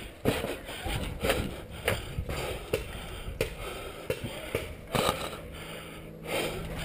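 Paintball gunfire heard from cover: scattered sharp pops and knocks at irregular intervals, some from markers firing and some from paintballs striking the wooden bunker, mixed with rustling from the crouching player.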